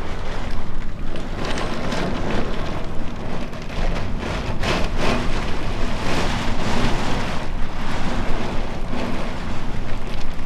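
Heavy rain pouring down with gusting wind, a steady rushing that swells and eases.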